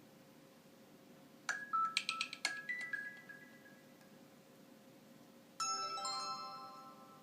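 Nokia 6500 Slide's loudspeaker playing two short message alert tones. About a second and a half in there is a quick run of bright electronic notes, and near the end a single chime rings out and fades.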